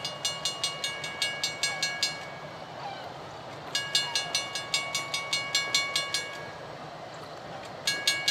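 Railroad crossing bell ringing at about four strikes a second in on-off bursts: it rings for about two seconds, stops, rings again for about two and a half seconds from near the middle, and starts once more near the end. The malfunctioning crossing is stuck cycling on and off, which the uploader puts down to the locomotive parked nearby.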